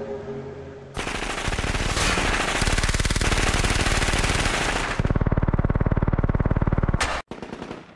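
Sustained automatic gunfire in a film shootout: a long, very fast continuous stream of shots that stops abruptly about seven seconds in, with a few scattered shots after. It cuts in about a second in over a low, steady droning hum with several held tones.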